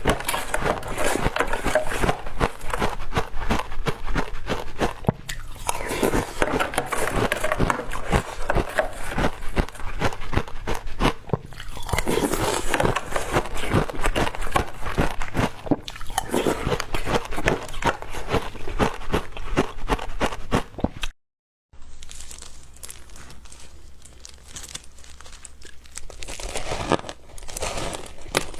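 Ice being bitten and crunched close to the microphone, dense irregular crunching with brief pauses between bites. About three-quarters of the way through, the sound cuts out for a moment, then the crunching resumes quieter and sparser.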